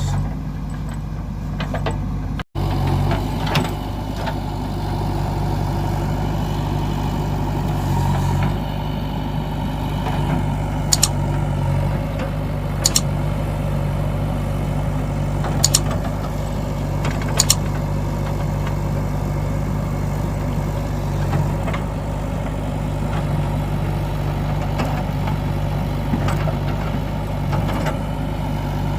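Diesel engine of a JCB 3DX backhoe loader running steadily, with a few sharp clicks midway. The sound cuts out for an instant a couple of seconds in.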